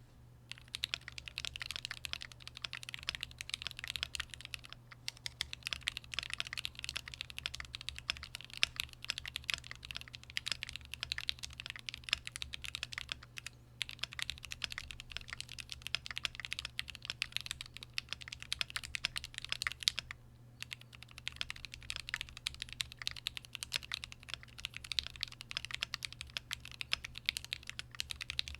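Typing on a stock-configured Keychron Q4 60% mechanical keyboard in its aluminium case, with lubed SP Star Meteor White switches and PBT keycaps: quick, continuous key presses, broken by short pauses about five, fourteen and twenty seconds in.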